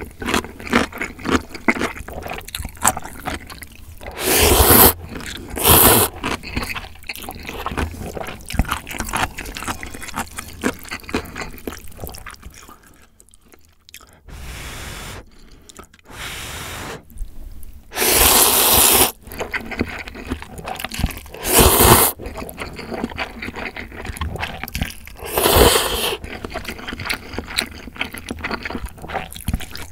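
Close-miked eating of instant ramyeon noodles with sausage: wet chewing and small mouth clicks throughout, broken by about five loud slurps of noodles, two a few seconds in and three more in the second half.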